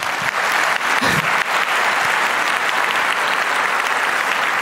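Large audience applauding steadily, the dense clapping of many hands.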